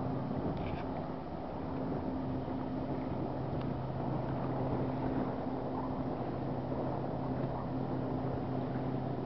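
Distant speedboat's engine droning steadily across the water, with wind noise on the microphone.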